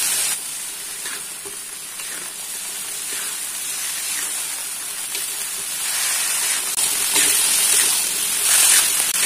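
Stir-fry of baby corn, meatballs and tempeh sizzling in a wok over a raised flame. The sizzle grows louder about six seconds in as a spatula stirs the ingredients.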